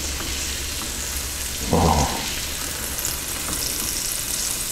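Filet mignon steaks sizzling on a hot cast iron grill plate on an induction cooktop, a steady hiss, with one short soft thud about two seconds in.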